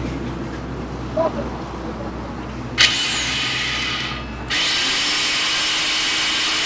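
Angle grinder motor driving a homemade masala grinder mounted under a steel bucket, switched on about three seconds in and running at speed with a steady high whine.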